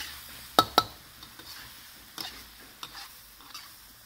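Metal spatula clacking and scraping against a wok while stir-frying a shrimp and carrot filling, over a faint sizzle. Two sharp clacks come about half a second in, then a few softer scrapes.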